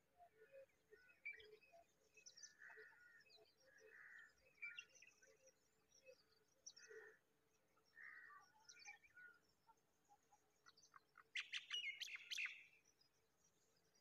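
Faint, scattered cheeping from newly hatched nestlings begging for food, with a louder run of rapid chirps about eleven seconds in.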